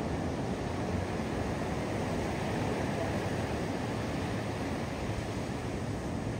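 Sea surf breaking and washing ashore, a steady rush of noise with no single wave standing out.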